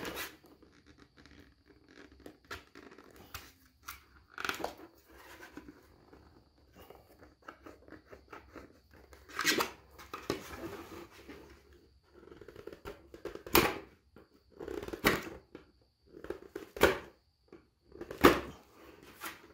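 Hard 3D-printed PLA plastic parts being handled and test-fitted together: scattered clicks and knocks with short rubbing and scraping between them. A faint steady high whine sits underneath.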